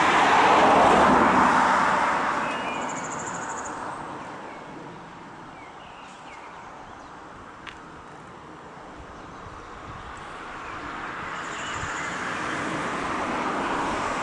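Passing vehicle noise swells to its loudest about a second in and fades over the next few seconds, then a second pass builds up toward the end.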